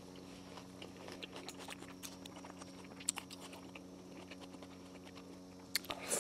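Close-miked chewing of a shawarma wrap: soft, wet mouth clicks. It ends with a fresh bite into the wrap, a cluster of sharper crackly clicks.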